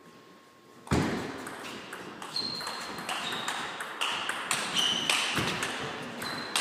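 Table tennis rally: after a quieter first second, the celluloid-type ball clicks off the bats and the table in quick succession, with short high squeaks between the hits.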